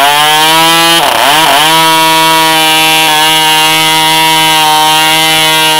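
Soviet MK-12b 2.5 cc model diesel engine running at high speed, driving a propeller. About a second in its pitch dips sharply and climbs straight back, then it holds a steady high note.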